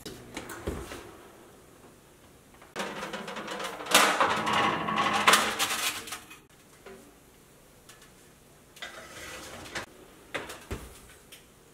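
Kitchen wall oven door pulled open with a thump, then painted cast-iron brake calipers scraping and clanking on the metal oven rack as they are set inside, and the oven door shut with a low thump near the end.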